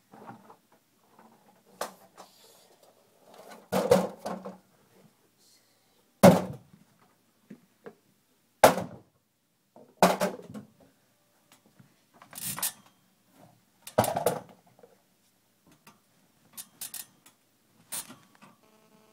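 A series of irregular knocks and clicks, a sharp one every second or two, with soft rustling between them.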